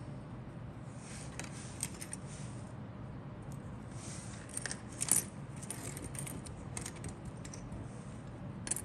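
Small injection-moulded plastic model-kit parts clicking and clattering as they are picked up, turned over in the fingers and set down on a cutting mat, in scattered light clicks with the loudest clack about five seconds in.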